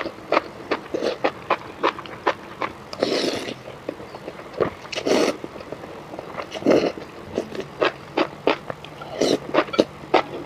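Close-miked eating of noodles: wet chewing and lip-smacking clicks several times a second, broken by longer slurps about three, five, seven and nine seconds in.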